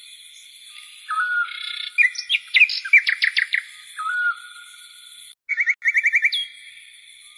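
Birds chirping: a short whistled note repeating every few seconds and two bursts of quick trilling chirps, over a steady high background tone.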